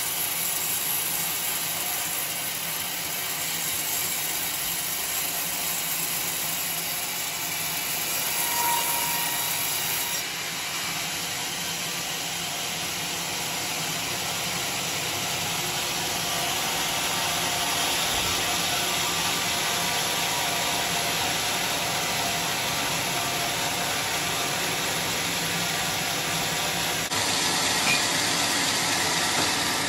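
Band sawmill blade cutting lengthwise through a coconut palm log: a steady hissing whir of the running blade and its motor, its tone shifting slightly about ten seconds in and again near the end.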